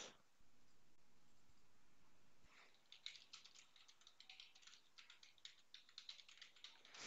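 Faint typing on a computer keyboard: a quick run of key clicks starting about three seconds in, as a username and password are entered.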